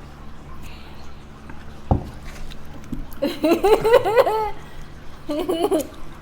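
A person laughing in two bursts, the first about three seconds in and a shorter one near the end, with a low thump about two seconds in.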